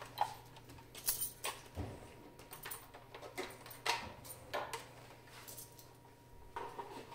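Scattered light clicks, taps and rattles at uneven intervals: a foot switch cable and plug being handled and connected to a diathermy machine.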